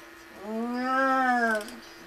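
A drawn-out pitched voice-like sound, rising and then falling in pitch, held for more than a second, over a steady low hum.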